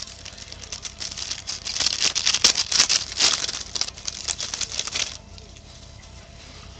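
Rapid crackling and rustling of trading cards and a foil card-pack wrapper being handled, stopping abruptly about five seconds in.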